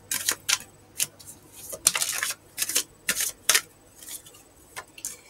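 Tarot cards being shuffled and handled: a quick series of sharp card clicks and brief papery swishes.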